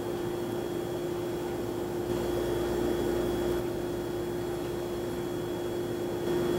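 Steady background hum with a faint high whine over a hiss of noise.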